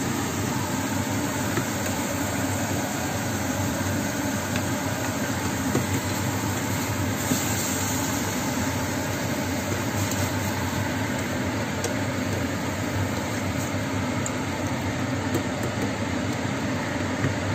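A steady low machine hum with a hiss over it, with a few light taps and scrapes of a plastic spatula stirring tomato sauce in a frying pan.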